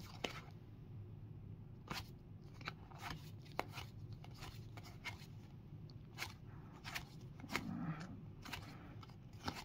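Cardboard baseball cards being flipped through by hand, moved one at a time from one stack to the other, making soft rustles and irregular sharp little clicks as the card edges snap and slide against each other.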